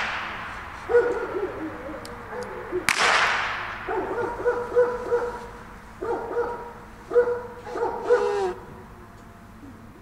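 A blank pistol shot about three seconds in, fired for the gun-shyness test during off-leash heeling, cracking and then fading out; the tail of an earlier shot is dying away at the start. Between and after the shots come four short bursts of a steady-pitched call.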